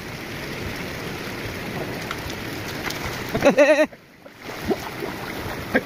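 Water running and splashing in a flooded rice paddy as a pair of oxen draw a wooden plough through the mud. About three and a half seconds in, a man gives a short, wavering call to the oxen.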